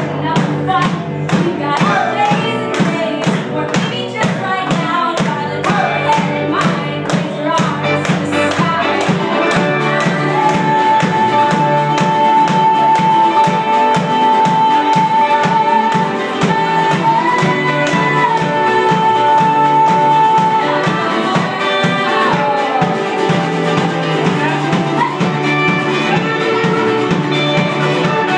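Live folk-rock band playing acoustic guitar, electric guitar, cello and drums. Quick strummed strokes fill the first stretch, and a long held high note carries through the middle.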